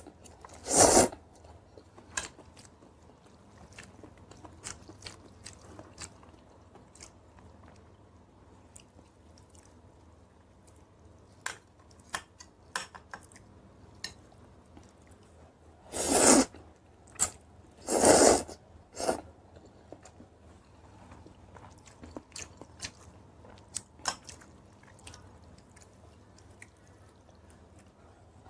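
A person eating close to the microphone: chewing and crunching with many small clicks, broken by three short, loud bursts, one about a second in and two close together about two-thirds of the way through.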